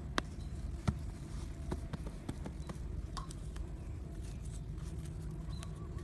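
Scattered light clicks and taps, irregular and a second or so apart, over a steady low rumble.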